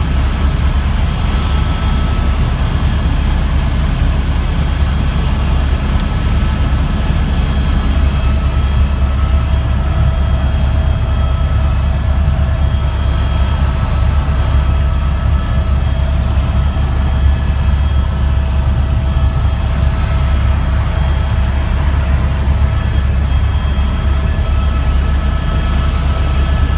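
Helicopter running steadily: a deep, even rotor and engine drone with a thin steady whine above it.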